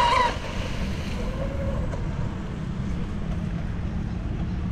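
An RC speedboat's 3660-size 2600 kV brushless motor on a 4S battery whines at full speed and falls away about a third of a second in as the boat heads off. After that, wind buffeting the microphone is the main sound, with the motor's faint whine heard briefly about a second and a half in.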